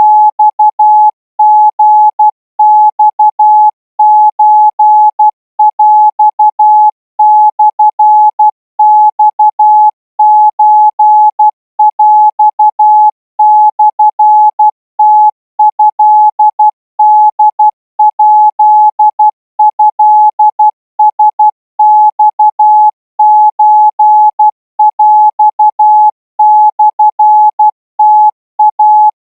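Morse code, a single mid-pitched beep tone keyed on and off in short and long elements, grouped into characters with short gaps between them: Thai-language Morse sent at 16 words per minute.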